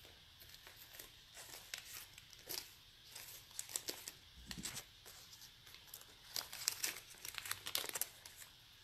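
Faint, irregular crinkling and clicking from a gold bracelet being handled close to the microphone. It is busiest in the last few seconds.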